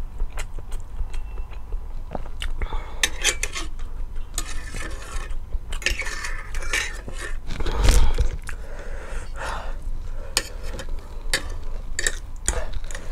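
Eating utensils clicking and scraping against a bowl of noodles, close to the microphone, with one loud thump about eight seconds in.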